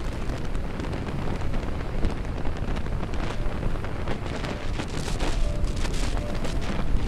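Storm wind buffeting the phone's microphone in gusts, over heavy surf breaking on rocks.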